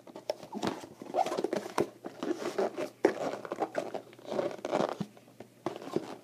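Irregular scraping, crinkling and clicking as a sealed cardboard card box and its wrapping are picked and cut at by hand, a stubborn box that will not open.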